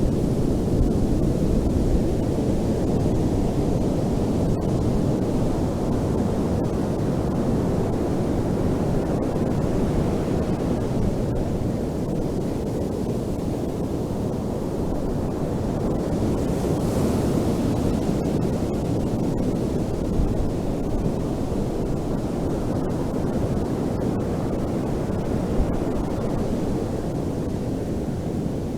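Ocean waves breaking on a beach, a continuous deep wash that swells and eases slowly, with wind buffeting the microphone.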